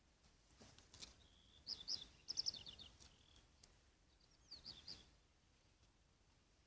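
A small bird calling: quick runs of high, falling chirps, a burst about a second and a half in and another short one near five seconds.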